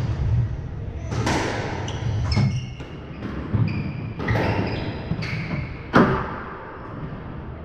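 Squash ball being struck by rackets and smacking off the court walls in a rally, a hit roughly every second, the sharpest crack about six seconds in. Sports shoes squeak briefly on the wooden floor between shots.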